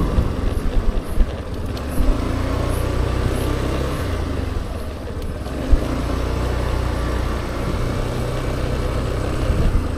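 Suzuki Burgman Street 125 EX scooter riding slowly, its single-cylinder engine and road noise making a steady low rumble. A few short knocks sound about a second, two seconds and six seconds in.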